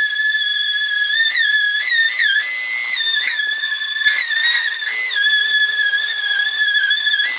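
Electric angle grinder running with a steady high whine, its pitch dipping briefly several times as it is pressed into the steel of the hood. It is grinding the hood's underside bare where the hinge base brackets will be tack welded.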